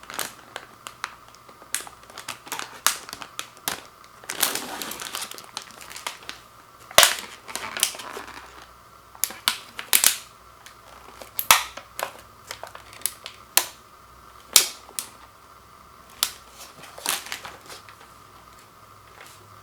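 Plastic cookie packaging being handled: scattered sharp clicks and snaps of stiff plastic, with short stretches of crinkling about four seconds in and again near eight seconds.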